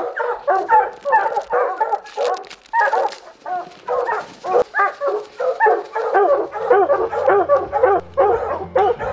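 Several hunting hounds baying treed, fast overlapping barks from more than one dog at once, the sign that the hounds are holding a mountain lion up a tree.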